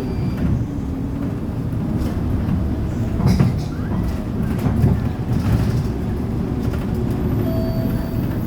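Inside a city bus while driving: the engine and drivetrain run with a steady low rumble, and the body rattles, with a couple of sharper knocks about three and five seconds in.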